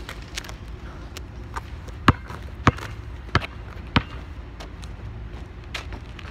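Basketball dribbled on pavement. There are sharp, separate bounces about every half second, loudest in the first four seconds, and fainter bounces after that as the ball moves away.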